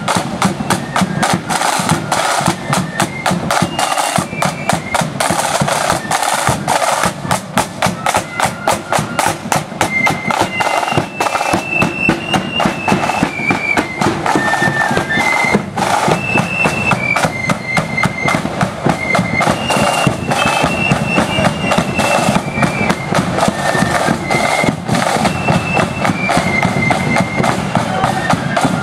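Marching flute band playing: snare drums beat a fast, driving rhythm while flutes carry a high tune above them, clearest from about ten seconds in.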